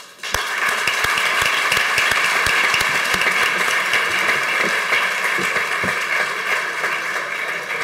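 A roomful of people applauding. The clapping starts suddenly just after the beginning and stays dense and steady.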